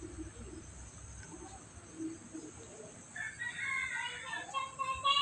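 A rooster crowing once: a long pitched call that begins about three seconds in, rises and holds, then falls away near the end.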